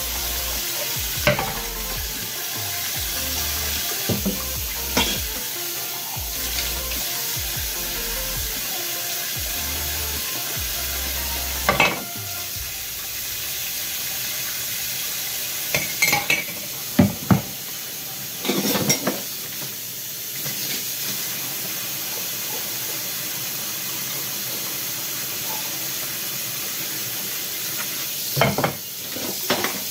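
Hot tap water running steadily into a stainless steel sink during hand dishwashing, with plates and cutlery clinking and clattering now and then, loudest in a run of knocks a little past halfway.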